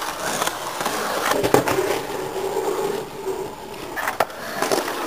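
Skateboard wheels rolling over a concrete skatepark bowl, with a sharp clack of the board about a second and a half in and another about four seconds in.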